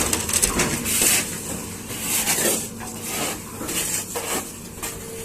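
Sheet metal scraping, screeching and clanking in repeated strokes as an excavator's bucket tears at a truck body, with the excavator's engine running underneath.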